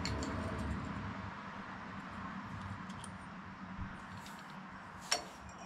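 Handling of the rocker arm housing as it is fitted to the cylinder head of a Tecumseh OHV small engine. A few faint ticks and one sharp click about five seconds in sound over a steady hiss that slowly fades.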